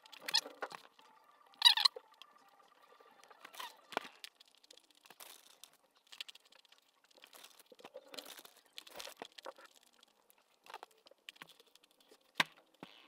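Irregular small clicks, rustles and faint squeaks close to the microphone, with a sharp click near the end.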